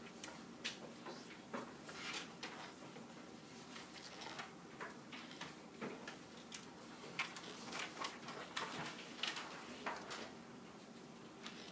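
Handwriting on an iPad's touchscreen: a string of irregular light taps and short scrapes on the glass.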